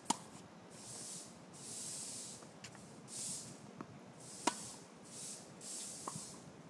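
Tennis ball struck by a racket on ground strokes: two sharp cracks, one just after the start and one about four and a half seconds in, with a few fainter ticks between them. A hiss swells and fades every second or so.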